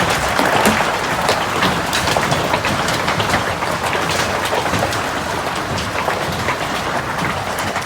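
Heavy fall of large hailstones, a dense steady hiss of ice striking hard surfaces, dotted with many sharp individual impacts.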